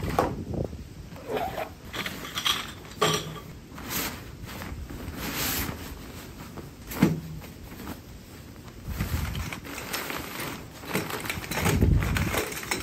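Handling of a OneTigris folding camp cot being pulled from its carry bag on a wooden picnic table: fabric rustling and sliding, with a sharp knock about seven seconds in and heavier thumps near the end.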